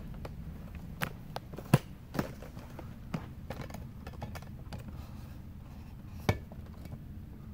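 Camera handling noise: a few sharp knocks and taps, the loudest about two seconds in, over a low steady room hum.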